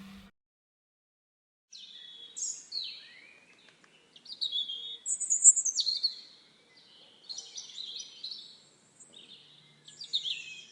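Bird song: a run of varied high chirps, warbles and trills, starting after a short silence about two seconds in and going on in phrases, loudest around the middle. A moment of the fading end of acoustic guitar music comes just before it.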